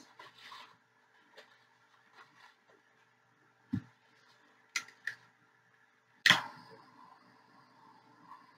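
Small handheld butane torch: a few clicks of its igniter, the loudest about six seconds in, after which the flame catches and hisses faintly and steadily. It is about to be passed over wet acrylic pour paint.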